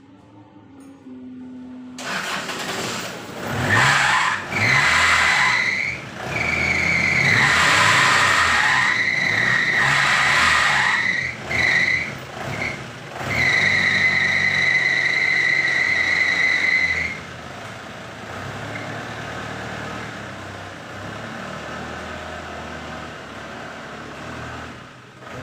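A car making a loud, high, steady-pitched squeal in several stretches over about twelve seconds, with engine noise underneath. A quieter steady rumble follows.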